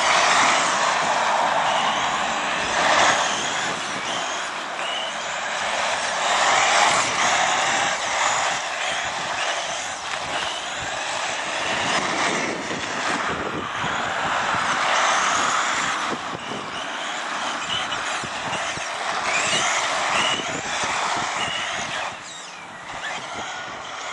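Tamiya Gravel Hound electric RC buggy driving laps on asphalt: the high motor whine and tyre hiss swell each time it passes close and fade as it pulls away, with the pitch of the whine rising and falling as the throttle changes. It grows quieter near the end as the buggy runs out to the far side of the track.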